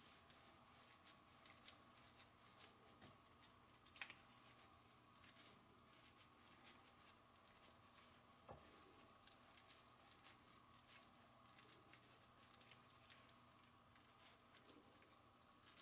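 Faint, scattered soft clicks and sticky squishes of gloved hands packing sushi rice into fried tofu (aburaage) pouches, with a slightly louder tick about four seconds in and another past eight seconds.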